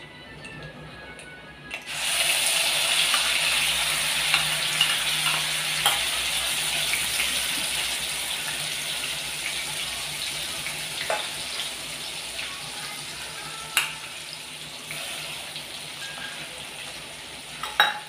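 Coconut, garlic and green-chilli paste hitting hot oil with crackled cumin and mustard seeds in a steel kadhai: a loud sizzle starts suddenly about two seconds in and slowly dies down. A few sharp clinks are heard over it.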